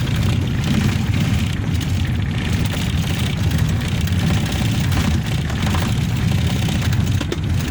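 Vehicle engine running with steady low rumble and road noise, heard from inside the vehicle.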